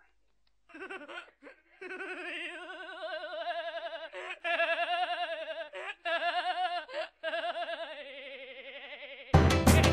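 A person laughing at length in rapid, wavering 'ha-ha' pulses, broken by short catches of breath. Loud music with a beat cuts in near the end.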